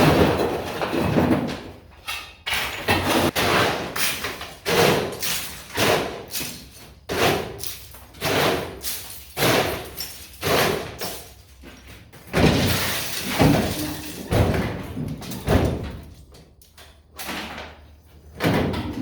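Broken half bricks being thrown out of a pickup truck bed onto a pile: a string of irregular clattering impacts, roughly one a second, each ringing out briefly.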